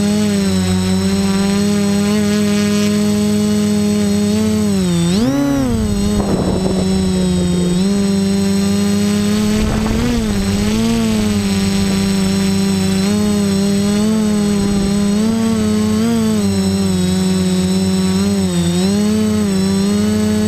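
Quadcopter's electric motors and propellers droning in flight, a steady whine whose pitch dips and recovers several times as the throttle changes, most deeply about five seconds in.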